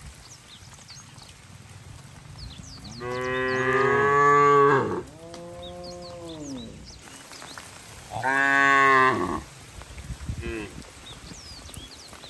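Cattle mooing. A long, loud moo about three seconds in runs straight into a lower, quieter one, then a second loud moo comes about eight seconds in, followed by a short faint one.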